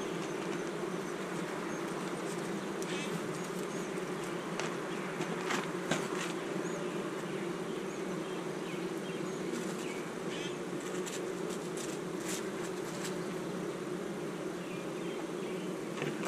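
Steady hum of a honey bee colony over an opened hive, the bees crowding the exposed top bars of the frames. A few faint clicks sound now and then.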